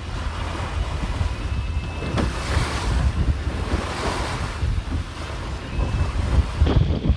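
Wind buffeting the microphone over water rushing and splashing along the hull of a 1937 22 Square Meter sailboat driving under sail, with spray breaking off the bow now and then.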